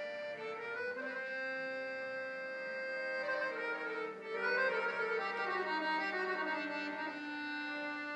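Solo accordion playing a melody: held notes and chords, with a quicker run of moving notes in the middle and a brief dip followed by the loudest stretch about halfway through.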